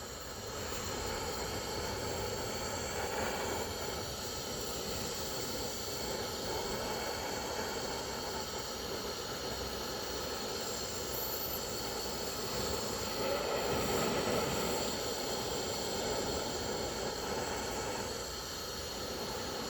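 Gas torch flame hissing steadily while heating a broken stud in a clutch housing, swelling a little about two-thirds of the way through.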